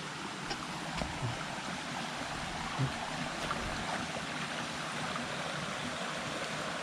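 Waterfall's steady rushing water, an even rush without let-up, with a couple of faint knocks.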